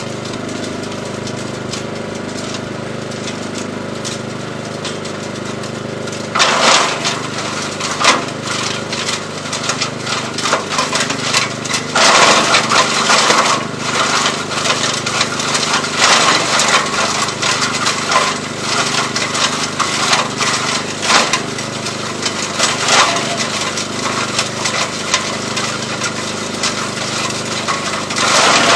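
ELIET Minor 4S garden chipper-shredder running steadily on its small engine. From about six seconds in, branches fed into it are cracked and splintered by the cutters in repeated loud bursts, the loudest around twelve seconds in.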